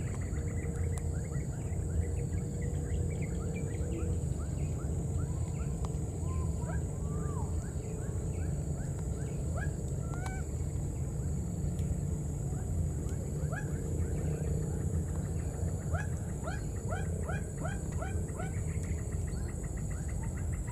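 Baby monkey giving repeated short, rising squeaks, with a fast run of them near the end, over a steady low rumble and a thin high hum.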